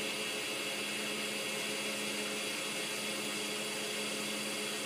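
Woodfast wood lathe's motor and spindle running steadily at full speed, about 2700 RPM: an even hum with a hiss.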